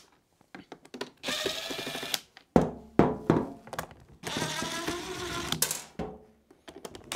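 Cordless driver undoing the screws of the generator's plastic cover, its motor whining in three short spells with brief pauses between, after a few light clicks.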